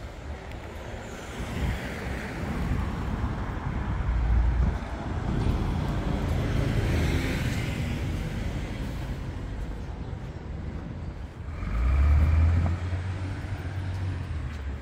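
Road traffic on a city street: cars and a city bus passing close by, with engine rumble and tyre noise. The loudest pass-by, a deep engine rumble with a faint whine, comes about twelve seconds in.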